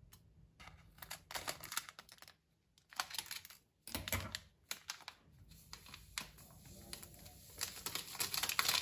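Crinkling and rustling of a paper instant-yeast sachet handled in the fingers, in short irregular crackly bursts. It grows louder and denser near the end as the sachet is tipped out over the mixer bowl.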